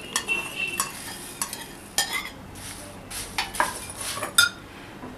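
Dry puffed rice and crisp namkeen rattling in a bowl: a string of short dry rattles and rustles, several of them sharper than the rest.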